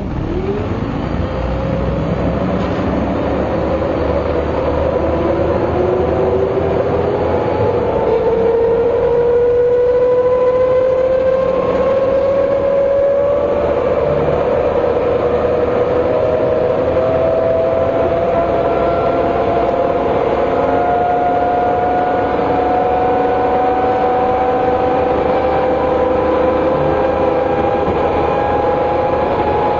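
MCW Metrobus double-decker bus under way, its Gardner diesel engine running, with a prominent differential whine. The whine climbs slowly and steadily in pitch, and the bus grows louder over the first several seconds.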